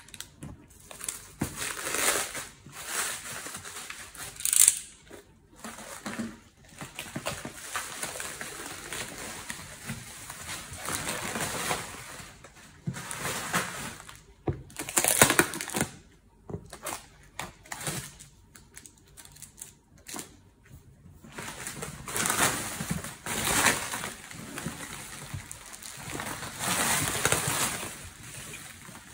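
Packaging being opened by hand: a cardboard box cut open and handled, with plastic wrap and plastic bags crinkling and rustling in irregular bursts and a few sharper, louder crackles.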